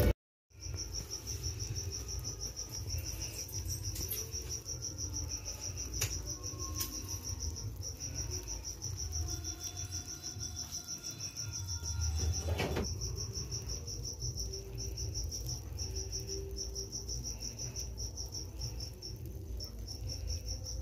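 A cricket chirping in a rapid, steady high-pitched pulse, over a low background rumble that swells briefly about twelve seconds in.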